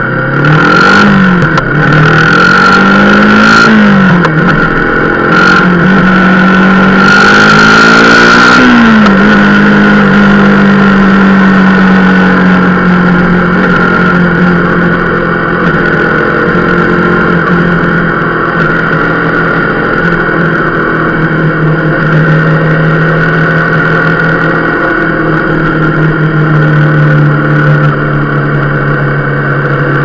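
Motorcycle engine pulling away and accelerating through the gears, its pitch climbing and dropping at each of three gear changes in the first nine seconds, with wind rushing past. It then settles into a steady cruise. The bike is running on a freshly adjusted drive chain.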